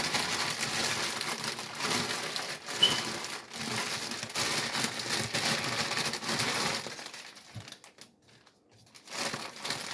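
Collard greens rustling and crunching as handfuls are pressed down into a crock pot: dense crinkling that thins out after about seven seconds, with one more short burst near the end.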